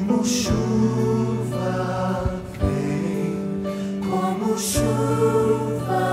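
Christian worship song: held sung notes with choir over a band accompaniment, with two crashes about four seconds apart.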